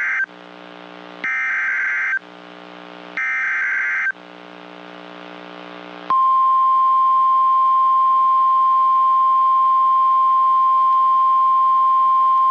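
NOAA Weather Radio Emergency Alert System header: the tail of one short burst of buzzy digital data tones, then two more bursts about a second long and a second apart. About six seconds in, the steady, single-pitch 1050 Hz weather radio warning alarm tone starts and holds, announcing that a new warning follows.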